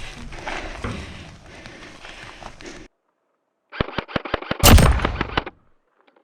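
Noisy field sound that cuts off abruptly, then after a short silence a quick string of about six sharp gunshots followed by one loud blast that dies away.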